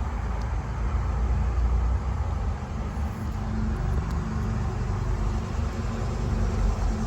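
Ford 7.3 Power Stroke turbo V8 diesel idling steadily, a low even rumble.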